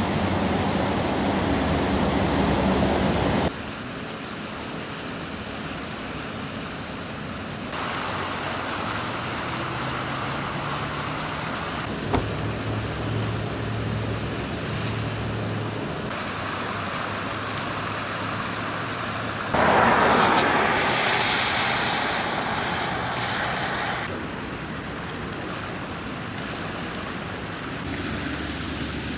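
Floodwater rushing through an overflowing canal: a steady wash of water noise that changes abruptly several times between shots, loudest about twenty seconds in.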